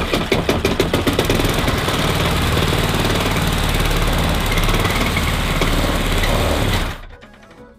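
Restored Hayter rotary lawnmower's Briggs & Stratton single-cylinder petrol engine running steadily at mowing speed just after being started, then cutting off abruptly about seven seconds in. It is the first test run after restoration, and the engine runs.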